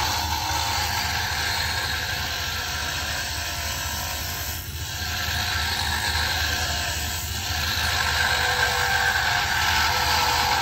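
Small wood lathe running while a hand-held turning tool cuts a spinning wooden pen blank: a steady motor hum under a constant hiss of shavings being cut. The cutting eases for a moment about halfway through, then carries on.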